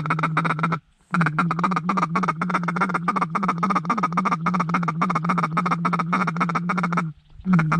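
Duck call blown with a rapid, steady-pitched feed chuckle, a quick train of quacking notes: one short run that stops under a second in, then a long run of about six seconds and a brief burst at the end. Calling is used here to coax circling wigeon and gadwall down to the decoys.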